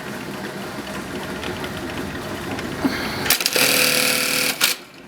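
Industrial 42-stitch bartack sewing machine running a tacking cycle: rapid, even stitching, with a louder stretch about three and a half seconds in that lasts just over a second and then cuts off.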